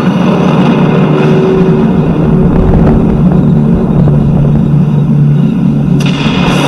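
Halloween sound-effects track playing over loudspeakers: a loud, steady low rumbling drone, joined about six seconds in by a sudden brighter hiss.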